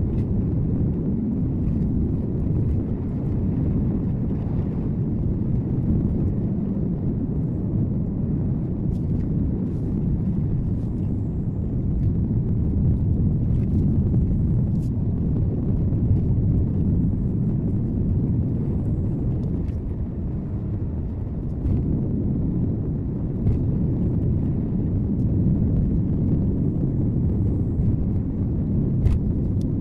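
A car driving, heard from inside the cabin: a steady low rumble of road and engine noise, with a few faint clicks.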